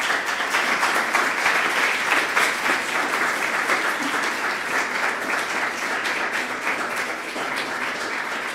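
Audience applauding: dense clapping from many hands, easing off slightly toward the end.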